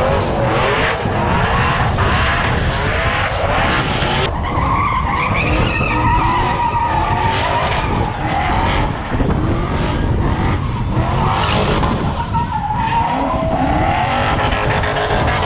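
A car doing a burnout, spinning donuts: engine held at high revs while the rear tyres squeal without a break, the squeal wavering up and down in pitch as the car slides round.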